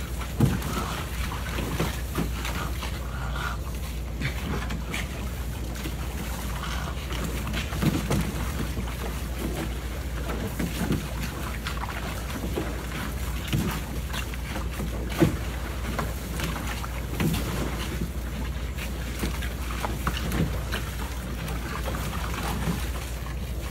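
Water splashing in a plastic kiddie pool as two small dogs jump and paddle through the spray of its fountain, with irregular splashes every second or two over the steady hiss of the fountain jet. Wind rumbles on the microphone underneath.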